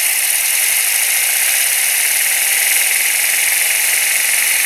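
Compressed-air Tesla turbine spinning a propeller at high speed: a loud, steady, high hissing whine of air rushing through the turbine and the blades.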